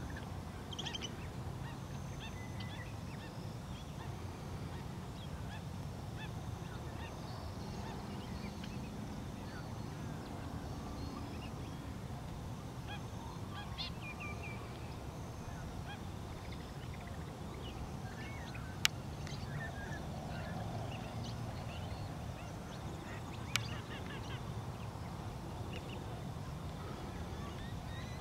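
Waterfowl calling across a wetland: many short, scattered calls and honks from a mixed flock of ducks and other waterbirds over a steady low rumble. Two sharp clicks stand out, a little after halfway and again about five seconds later.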